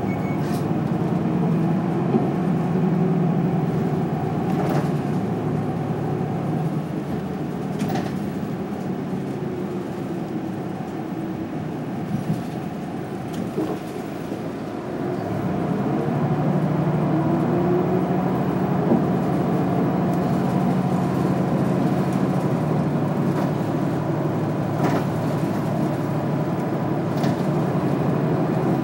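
City bus heard from inside the passenger cabin while under way: a steady engine drone with road noise and occasional small rattles of the cabin. About a third of the way in the engine eases off, and just past halfway it picks up again with a rising note and runs on louder.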